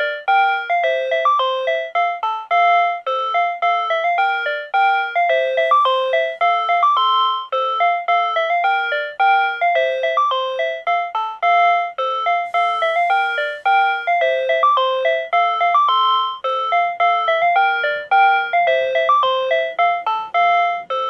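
Tobu Railway signal-clear tone from a PATLITE electronic annunciator: a short electronic chime melody looping over and over, telling the crew of a one-man train that the starting signal has cleared.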